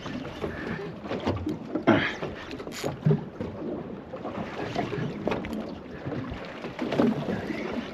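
Small boat drifting in a swell, water slapping against the hull, with scattered knocks of gear being handled on deck and wind on the microphone.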